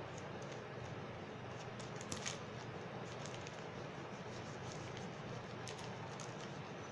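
Soft rustling and rubbing of gel-coated paper as fingers press and smooth it flat onto a wood slice, with a couple of faint clicks about two seconds in, over a steady low background hum.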